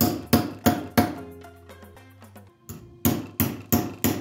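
Ball-peen hammer striking a small steel blank in a groove of a steel swage block, about three light, ringing blows a second. The blows stop for about two seconds after the first second, then resume at the same pace.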